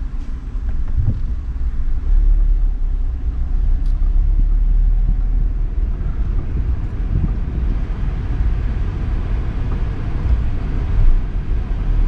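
Low, steady rumble of a running Toyota Voxy minivan heard from inside the cabin with the air conditioning switched on. No clunk of the A/C compressor clutch cutting in stands out, a quiet engagement the owners put down to the Power Aircon additive just added.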